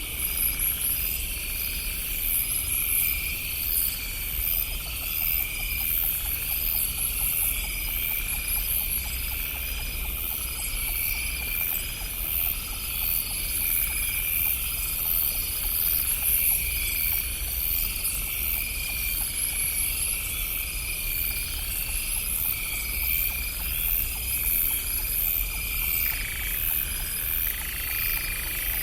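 Night chorus of crickets and frogs: steady high insect trilling with croaking pulses repeating about once a second. A faint steady tone comes in near the end.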